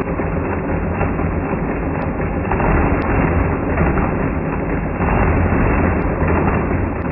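A 1956 Friden STW-10 mechanical calculator's gears and carriage clattering through a division, played back in slow motion so the clatter comes out deep and drawn-out. The machine is running successive subtractions, reversing each overflow and shifting one place at a time as it works out the quotient.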